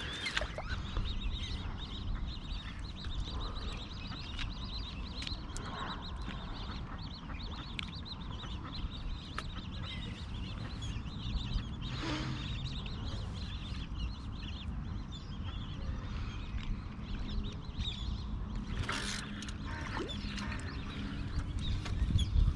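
Ducks calling and quacking on a pond, with a couple of louder calls about halfway and near the end, over a steady low rumble.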